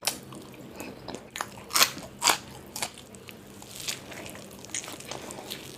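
Close-miked eating sounds: crisp, crunchy bites of food followed by chewing, with several sharp crunches, the loudest two just under two seconds in and half a second apart.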